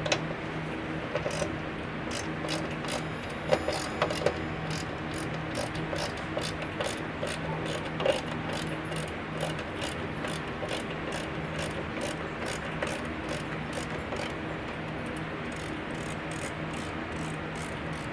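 Hand ratcheting screwdriver clicking quickly and repeatedly as screws are turned out by hand, over a steady low hum.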